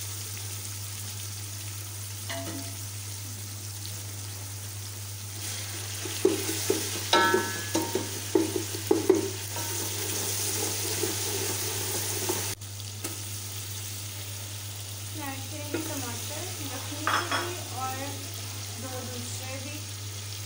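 Sliced onions sizzling as they fry in oil in a metal pot, stirred with a wooden spoon that scrapes and knocks against the pot. The stirring strokes are loudest from about six to nine seconds in and again a few seconds before the end, over a steady sizzle.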